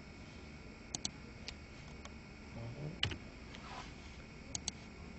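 Faint, scattered clicks of a computer mouse, about seven in all, two of them quick double-clicks, one near the start and one near the end.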